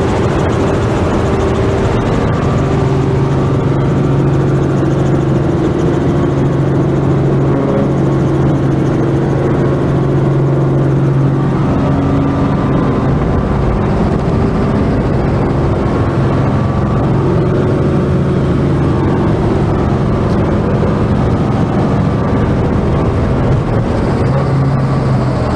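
Helicopter engine and rotor noise running at a steady, loud drone with constant low hums, unchanged for the whole stretch.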